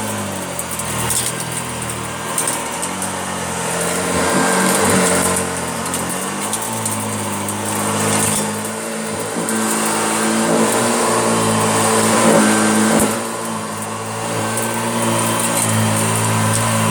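Hoover Junior upright vacuum cleaner running, its motor humming steadily, with the pitch and level rising and falling every few seconds.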